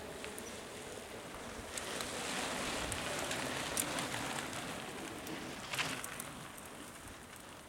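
A group of mountain bikes riding past on a dirt forest track: knobbly tyres rolling over the dirt, with scattered sharp clicks, fading as the riders move away near the end.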